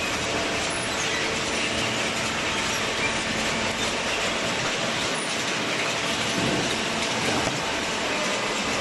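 Cardboard baler machine running: a steady, continuous mechanical clatter and noise with a faint low hum underneath.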